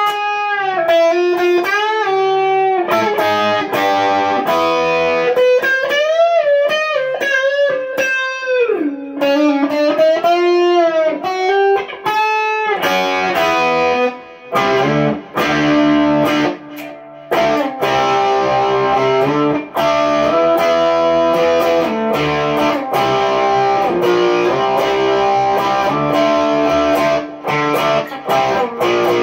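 Single-coil Fender American Stratocaster played through a Fender Twin Reverb amp and effects pedals. It plays single-note lead lines with string bends at first, then switches about halfway to denser, grittier chord riffing.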